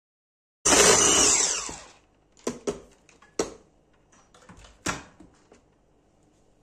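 Electric stick blender running in liquid cake batter under a plastic splash guard, then winding down with a falling whine once it is switched off. A few sharp plastic clicks and knocks follow as the blender is set aside and the splash-guard lid is handled.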